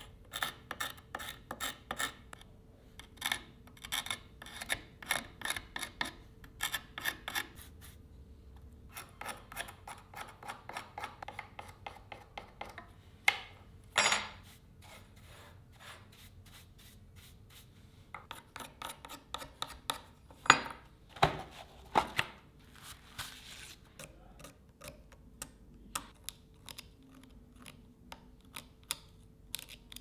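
A small steel blade scraping old flaking paint off a wooden knife handle in runs of quick, short strokes, with brief pauses between runs. A few strokes partway through are louder and longer.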